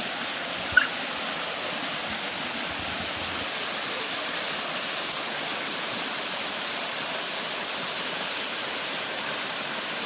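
Small waterfall's water falling steadily, an even unbroken rush. A short high chirp sounds about a second in.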